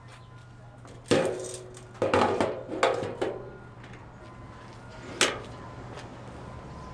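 Generator fuel cap being handled and screwed onto the fuel tank neck: a sharp clack about a second in, a quick run of clinks and clacks with a short ring, and one more sharp click near the end.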